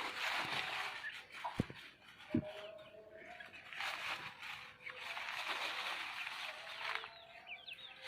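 Birds chirping and chattering outdoors, with two sharp taps in the first few seconds.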